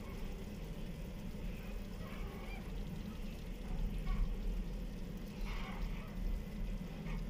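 Microwave-convection oven running during baking: a steady low electrical hum.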